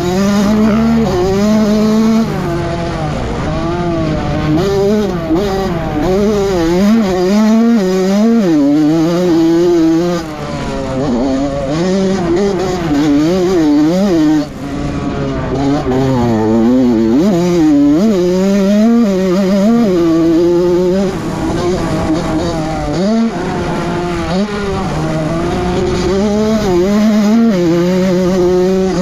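Honda CR85 two-stroke motocross engine revving hard and dropping off again and again as the rider accelerates, shifts and rolls off through the track's turns, its pitch rising and falling every second or two.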